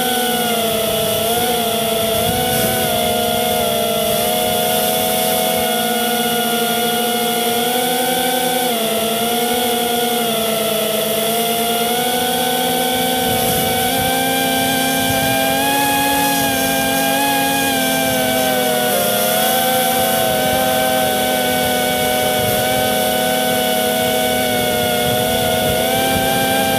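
FPV quadcopter's electric motors and propellers whining steadily, heard from the drone's own onboard camera, the several tones of the whine wavering up and down together as the throttle changes.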